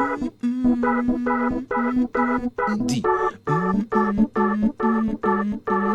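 Electronic keyboard on an organ sound playing a reggae chord rhythm: short, evenly spaced chords, about two to three a second, over a lower held line.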